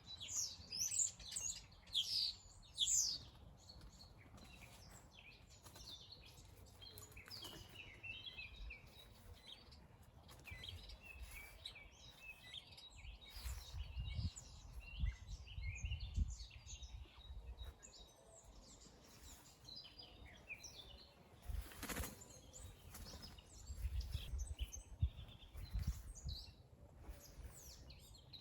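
Several songbirds singing and chirping in a dawn chorus, loudest in the first few seconds. Twice a low rumble rises under the birdsong, and there is a single sharp click about two-thirds of the way through.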